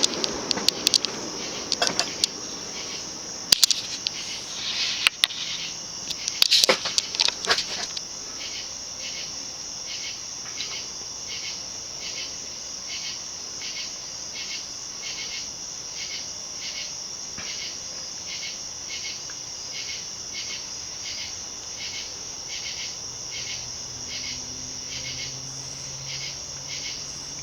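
Crickets chirping in a steady, even pulse, a couple of chirps a second. In the first several seconds a few sharp clicks and knocks sound over them.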